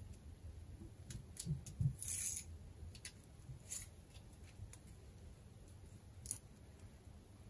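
Faint scattered clicks, taps and scrapes of steel coat-hanger wire being handled and fitted into a plastic strip connector, with a few soft knocks and a short scratchy scrape about two seconds in.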